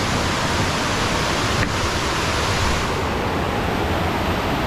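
Steady rush of water pouring down the small cascades of a tiered waterfall.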